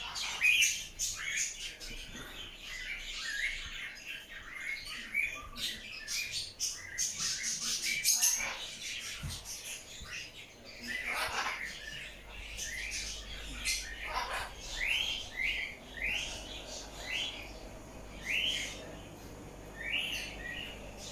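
Many caged birds chirping and calling together in overlapping short chirps, with a few lower, falling squawks around the middle. Near the end one bird repeats a short chirp about once a second.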